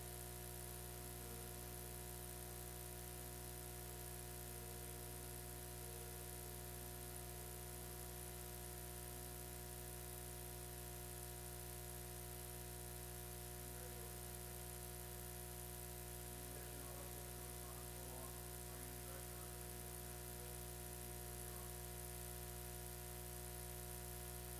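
Steady electrical hum and buzz with hiss in the recording feed, unchanging throughout, with only faint traces of other sound.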